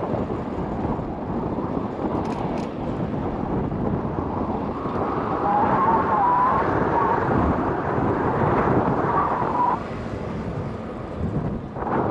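Wind rushing over a rider's microphone on a moving e-bike, mixed with traffic noise. A wavering tone comes in about halfway and cuts off suddenly near the end.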